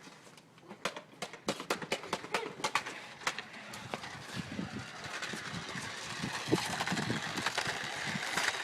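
Radio-controlled toy car driving over rough ground: a fast run of sharp clicks and rattles, then a steady running noise that grows gradually louder.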